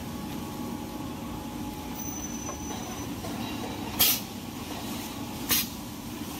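Steady hum of running machinery, broken twice, about four and five and a half seconds in, by short sharp bursts from the cylinder-driven bag-sealing bar as it closes and opens on a plastic pack of toilet rolls.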